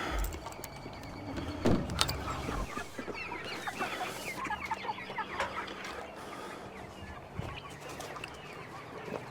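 Chickens clucking and chattering in a busy run of short calls, with two sharp knocks about two seconds in.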